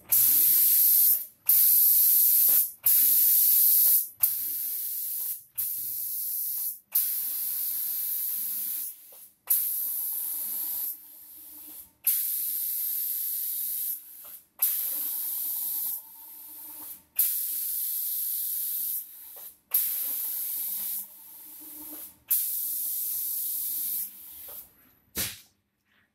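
Automatic spray gun of an SPD2500C CNC spraying machine hissing in about a dozen separate bursts, each starting and cutting off sharply, as it sprays passes of paint over a door panel. A low machine hum runs under most of the bursts.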